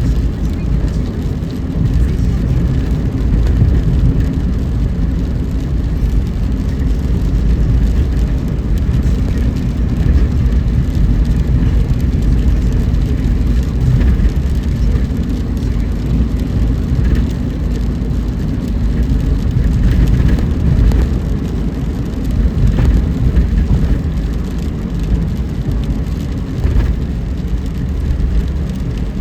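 Car driving on wet roads in the rain: a steady low rumble of road and engine noise.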